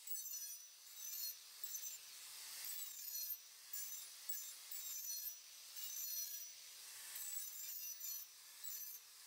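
Corded angle grinder with an abrasive disc sanding the weathered surface of a tree stump: a high motor whine over a rasping hiss of disc on wood, swelling and easing every second or so as the disc is worked over the wood.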